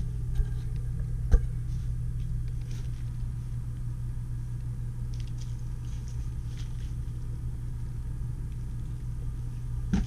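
Steady low rumble, with a sharp knock about a second in and a few lighter clicks as a plastic storage tote and the storage-bay door are handled.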